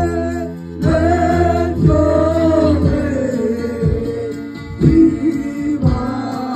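Live gospel worship music: a man singing held, sliding lines through a microphone and PA, over keyboard and a steady low beat.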